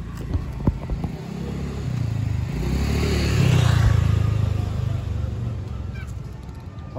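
A road vehicle passing by: its engine and tyre noise grow louder to a peak about halfway through, then fade away. A few sharp clicks come in the first second.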